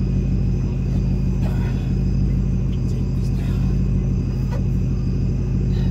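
A 2003 Mercury Grand Marquis's V8 engine idling steadily, a low even rumble with faint small handling noises over it.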